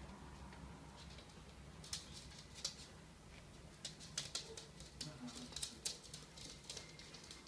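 Small dogs' claws clicking and pattering on a laminate wood floor as a Shih Tzu puppy and a small brown dog scuffle, in quick irregular clusters from about two seconds in.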